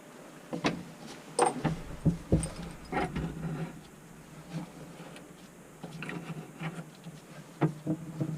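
Irregular clinks and knocks of metal plumbing fittings and hand tools being handled while a compression shutoff valve is fitted, in a cluster over the first few seconds and again near the end.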